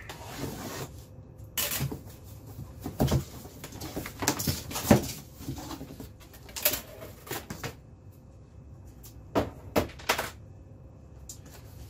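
A utility knife slitting the packing tape on a cardboard box, then the cardboard flaps being pulled open and the paper packing inside handled: a run of scrapes, rustles and knocks.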